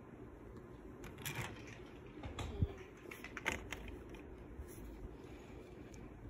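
Handling noise: a few small clicks and rustles in clusters about one, two and a half, and three and a half seconds in, over a low steady hum.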